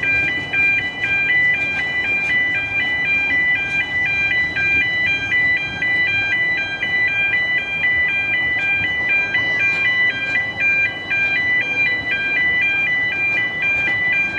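Electronic two-tone warning alarm of a road level crossing, two high tones alternating steadily, over the rumble of narrow-gauge carriages rolling past on street track.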